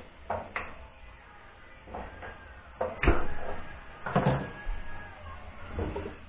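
Irregular knocks and clunks of a large steel pot with lidded glass jars inside being handled and lifted. The heaviest thump comes about three seconds in, and another follows about a second later.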